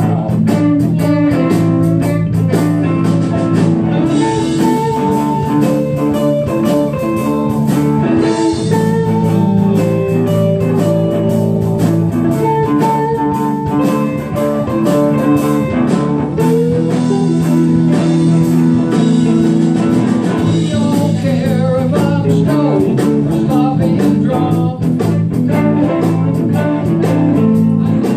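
Live blues-rock band playing: electric guitars, bass guitar and drums, picked up by a phone's microphone in the room.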